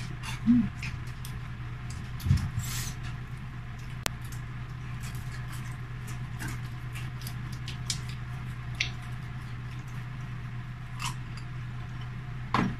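Eating sounds of people chewing deep-fried chicken and noodles with their hands: lip smacking, finger licking and scattered small wet clicks over a steady low hum. Two brief louder noises come in the first few seconds.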